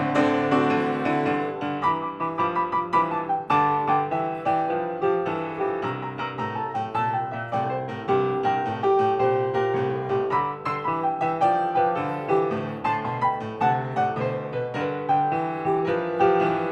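Solo piano music, with a flowing melody over held chords.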